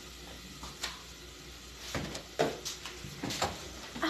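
A few light knocks and clicks of kitchen pots and utensils being handled, spread over a low steady background.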